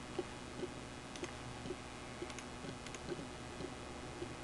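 Faint, scattered clicks of a computer mouse being operated, over a steady low electrical hum from the recording setup.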